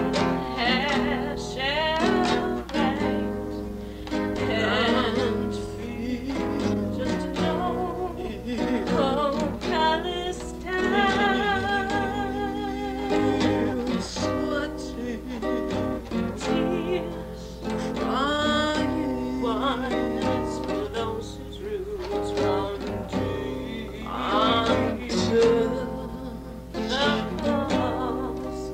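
Music of plucked string instruments with a voice singing a melody with vibrato.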